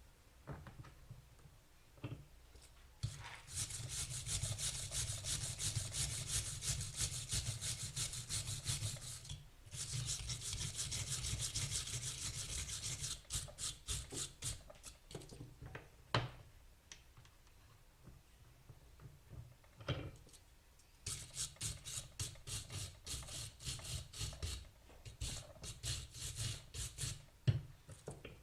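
Steel wire brush scrubbed by hand over a metal bike part to strip old paint, in rapid back-and-forth strokes. The strokes come in three long spells with pauses between, and a few sharp knocks fall in the pauses.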